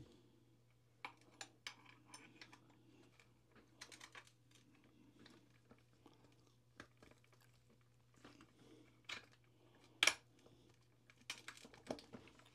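Faint, scattered clicks, taps and rattles of small metal parts being handled and fitted: an aluminium servo mount and its brackets being set into an RC truck's chassis, with a couple of louder clicks near the end.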